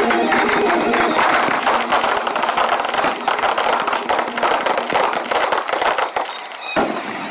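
Rapid barrage of aerial firework shells bursting overhead, a dense, continuous run of bangs and crackles that thins out a little near the end, with one strong report.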